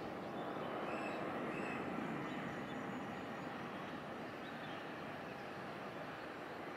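Jet airliner engine noise: a steady rushing roar that slowly fades away.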